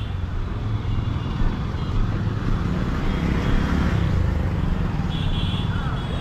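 Jawa Perak's single-cylinder engine running with a heavy, steady low rumble. A short high electronic beep sounds about five seconds in.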